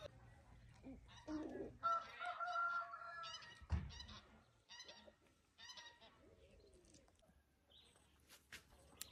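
Farmyard fowl calling faintly: one drawn-out call about two seconds in, then a run of short calls about a second apart. There is a low thump near the middle.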